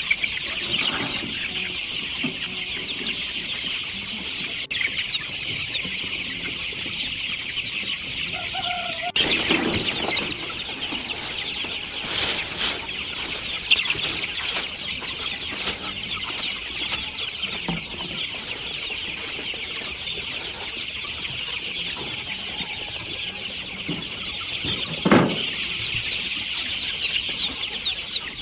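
Free-range chickens clucking over a dense, steady high-pitched chatter, with a run of sharp clicks through the middle and one thump near the end.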